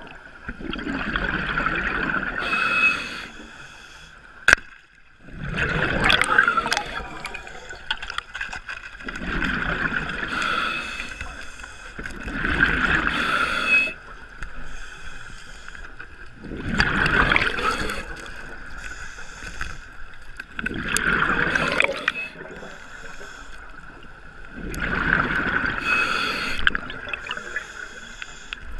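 Open-circuit scuba breathing heard underwater: a bubbling rush of exhaled bubbles from the regulator about every four seconds, seven breaths in all. A single sharp click comes about four and a half seconds in.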